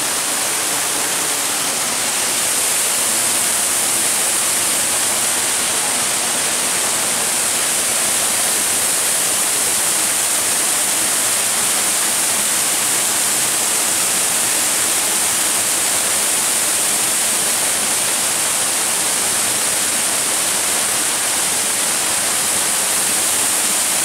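Waterfall pouring over rock into a pool: a steady, loud rush of falling water, a little louder from about two seconds in.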